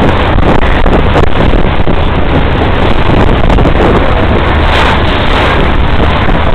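A ferry's engine running under way as a steady low drone, with loud wind buffeting the microphone.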